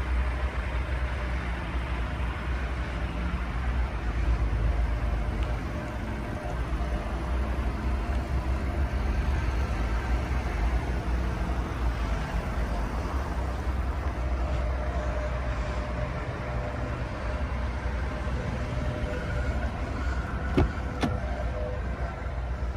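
Steady low outdoor rumble of traffic and wind on the microphone, with one or two sharp clicks near the end as the car's door is opened.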